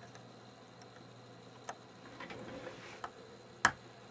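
A few faint plastic clicks and handling, then one sharp snap about three and a half seconds in: the scale's 3D-printed foot mount clipping into its slots.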